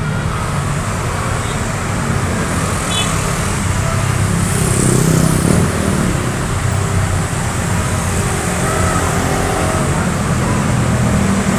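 Road traffic: engines rumbling steadily, with a vehicle passing close and louder about four to six seconds in.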